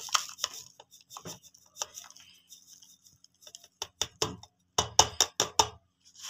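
A steel bowl tapping and clinking against a plastic spice box as powdered spice is poured out of it. About five seconds in comes a quick run of sharper knocks.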